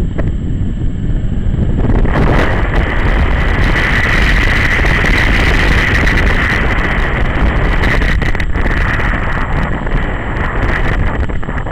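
Onboard riding noise on a BMW G 650 GS Sertao motorcycle: wind rushing over the camera microphone over the single-cylinder engine and road rumble. The rush gets louder about two seconds in and eases slightly near the end.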